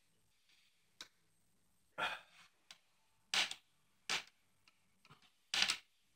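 Burmese cat sucking and licking at another cat's ear: a run of short sucking, smacking sounds, about five louder ones with faint ticks between.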